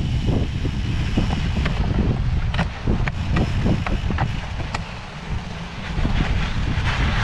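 Wind buffeting a bicycle-mounted camera's microphone, with the rattling and clicking of the bike jolting over a rocky gravel trail; the rumble eases briefly a little after the middle.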